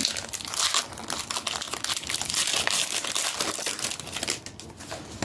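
Foil wrapper of a Pokémon TCG Crown Zenith booster pack crinkling and crackling as it is handled, busiest for about the first four seconds, then quieter.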